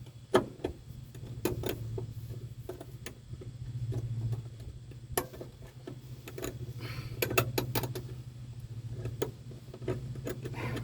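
Irregular small metallic clicks and taps as a bolt is worked back through the loops of a truck door hinge spring, over a steady low hum.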